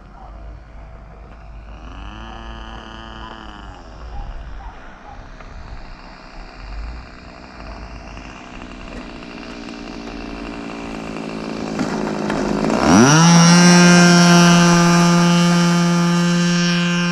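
Small model airplane engine running. About two seconds in the revs rise and fall briefly, and about 13 seconds in they climb sharply and hold at a high, steady pitch, the loudest part.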